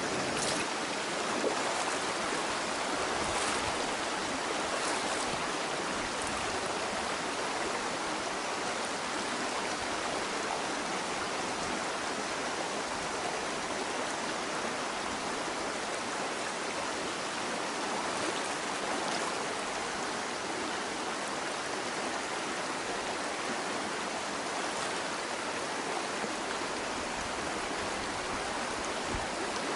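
Shallow mountain stream running over rocks, a steady rush of water. A few short, louder surges come in the first five seconds.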